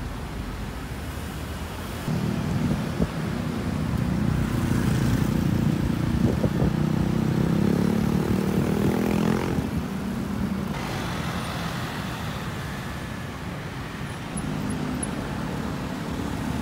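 Busy city road traffic: cars and motorbikes passing close by, engine hum and tyre noise on asphalt. It swells louder a couple of seconds in as vehicles pass near, stays up for several seconds, then eases off.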